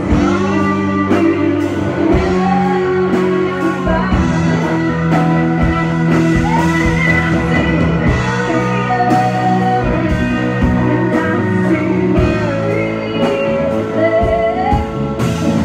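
Live rock band playing: two electric guitars over bass and drums. The lead guitar bends its notes, and the drums keep a steady beat.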